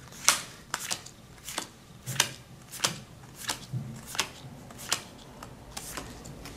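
Playing cards being dealt one at a time off a deck onto a pile, each card giving a short, crisp snap, about one and a half a second.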